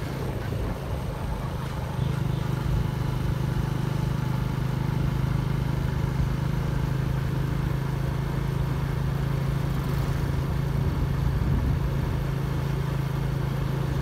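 Motorbike engine running steadily under way, a constant low hum with wind and road noise over it.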